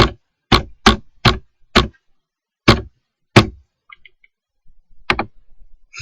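Computer keyboard keys struck one at a time in irregular keystrokes, about nine of them, with a pause of over a second in the middle, as a file name is typed.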